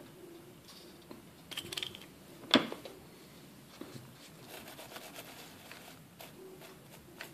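Hands handling a small plastic-bottle fertiliser basket and working it into gravelly bonsai soil. Faint rustling and scraping, with one sharp plastic click about two and a half seconds in.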